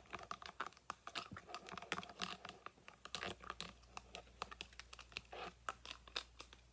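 A fork stirring hand soap and sugar in a bowl to make slime: rapid, irregular clicks and scrapes of the utensil in the mixture and against the bowl.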